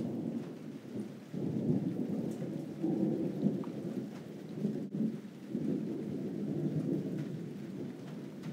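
Heavy rain in a thunderstorm: a dense, low rumbling noise that swells and eases, dipping briefly about a second in and again a little past the middle.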